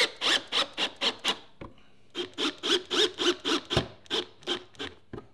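Cordless drill-driver driving screws through a thin metal strip into a wooden hive box. It makes a rapid, even clatter of about six strokes a second, in two runs with a short pause after about a second and a half.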